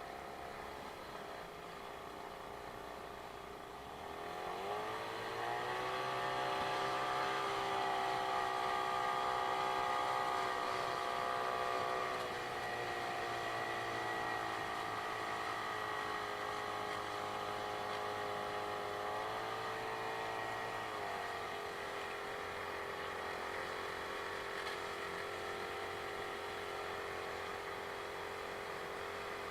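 A small boat's outboard motor running under way. It speeds up about four seconds in, eases back a little around twelve seconds and again around twenty-one seconds, then runs steadily.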